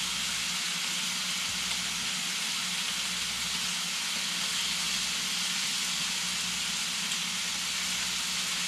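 Bacon sizzling in a hot cast-iron Dutch oven: a steady, even frying hiss.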